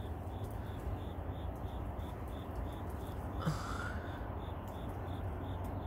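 A cricket chirping steadily, about four short high chirps a second, over a low steady hum, with one brief soft noise about halfway through.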